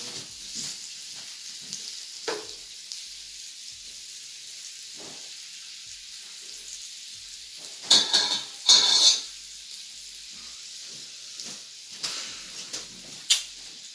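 Pork sizzling steadily on the plate of a SEAAN electric tabletop grill. Two loud, short clatters come about eight and nine seconds in, and a sharp click near the end.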